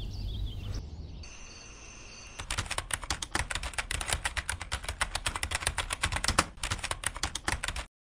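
A rapid, even run of sharp taps or clicks that starts a couple of seconds in and cuts off abruptly just before the end, over a faint low hum.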